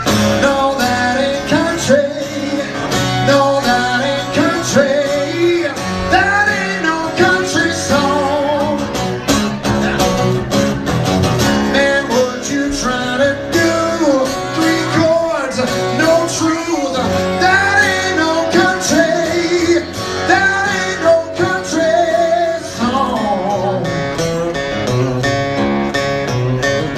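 Live country song: a man singing over a strummed acoustic guitar.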